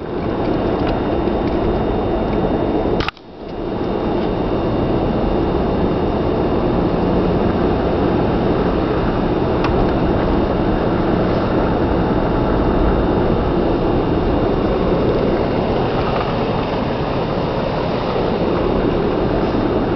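Steady engine and tyre noise inside a moving car on a snow-covered road, dropping out sharply for a moment about three seconds in.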